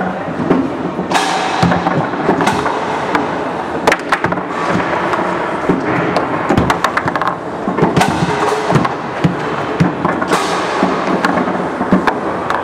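Foosball play on a Roberto Sport table: the ball cracking off the men and the walls, and rods clacking and sliding as the players shoot and block, in a series of sharp, irregular knocks.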